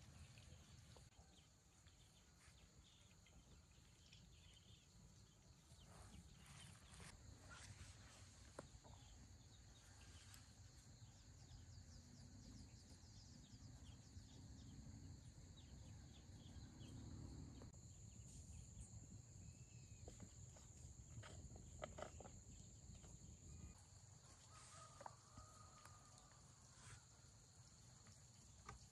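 Near silence: faint outdoor ambience with a steady high hiss and a few soft clicks and taps.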